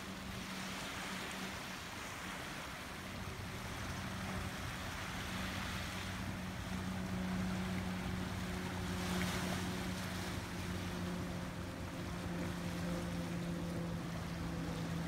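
Small waves washing on a pebbly, rocky shore, swelling and fading every few seconds, over a steady low hum.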